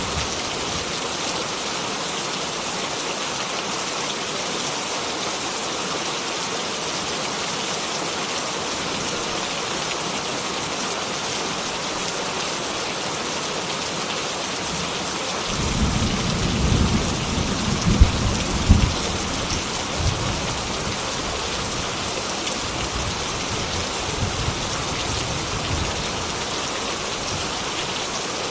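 Heavy rain pouring steadily. A little over halfway through, a roll of thunder rumbles in, peaks with two sharp cracks, and fades back under the rain.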